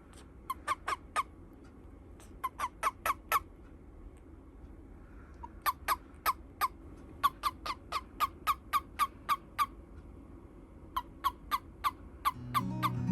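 Toad release calls: short, sharp chirps in quick runs of about four to nine, with pauses between the runs. This is the chirping a toad gives when it is clasped, signalling to be let go. Music fades in near the end.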